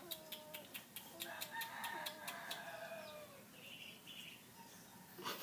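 Young puppies whining in faint, high, falling squeaks, several in a row in the first half, over a quick run of light clicks.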